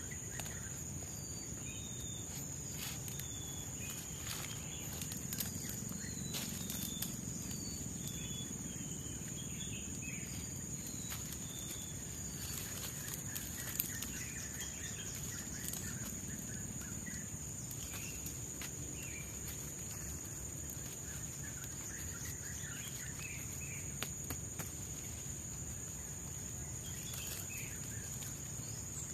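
Tropical forest ambience: insects keep up a steady high-pitched drone, while birds give many short chirps and whistles over it. There are a few sharp clicks or taps, and a soft low hiss of background noise.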